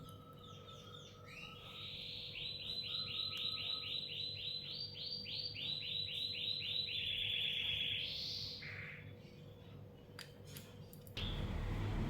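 A lovebird chirping in a rapid run of high chirps, about four a second, ending in a buzzier call and a short falling note. Near the end a steady rush of noise cuts in suddenly.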